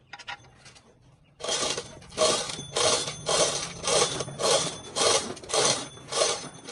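A few faint clicks, then from about a second and a half in a steady run of scraping strokes, nearly two a second, as a hand tool is worked back and forth over a surface.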